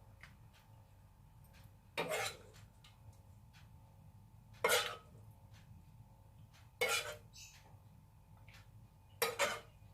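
A metal spoon clinking against a pan and a plate while serving green chillies from the pan: about five sharp clinks a couple of seconds apart, two close together near the end.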